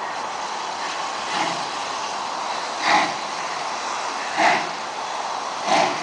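Steam locomotive working toward the listener, its exhaust chuffing slowly, about one beat every second and a half, over a steady hiss.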